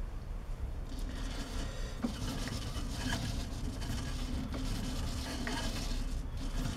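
Hundred-year-old metal lathe starting up about a second in and then running steadily, a constant low hum with a hiss of belt and gear noise, its spindle turning under a dial indicator for a runout check.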